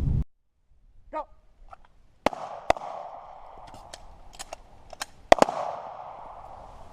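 Several single gunshots at irregular intervals, sharp cracks with a short rolling echo after each.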